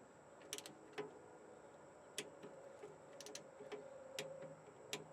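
Faint, irregular metallic clicks of a ratcheting torque wrench being worked on a bolt, with a faint steady hum.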